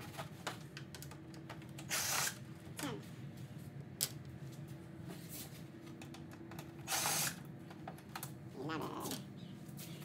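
Cordless drill/driver running in two short bursts, about 2 and 7 seconds in, backing screws out of a plastic grille shroud. Between the bursts come small sharp clicks and taps from handling the plastic parts and screws.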